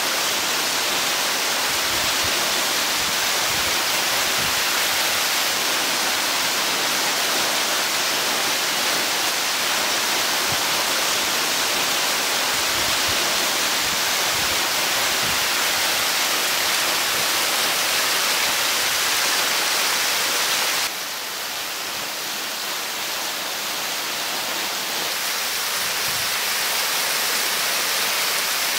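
Small waterfall pouring off a rock ledge into a pool: a steady rush of falling water. About two-thirds of the way through it cuts abruptly to a slightly quieter rush of water.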